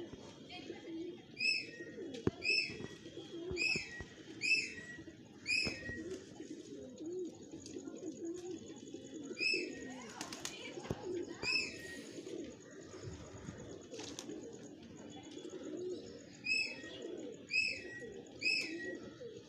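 Domestic pigeons cooing steadily while they feed, with runs of four or five short, high, falling chirps from another bird about a second apart.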